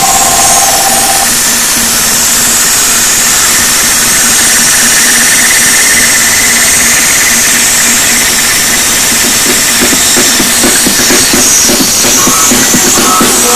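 Car audio system with a wall of speakers blasting music at extreme volume, picked up as a harsh, heavily distorted wall of noise; a rhythmic beat comes through more clearly near the end.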